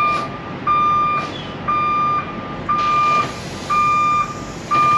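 Tractor-trailer's backup alarm beeping about once a second as the truck reverses, over low vehicle noise. A faint high hiss joins about halfway.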